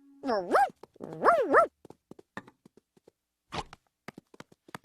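Cartoon dog giving two short yips, each rising and falling in pitch, followed by a scatter of small quiet clicks.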